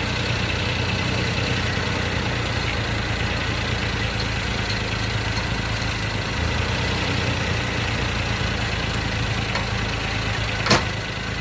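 Suzuki Jimny engine idling steadily, with one sharp knock near the end. The knock is the kind of clunk the owner traces to a leaf-spring shackle twisting and snapping back on worn bushes.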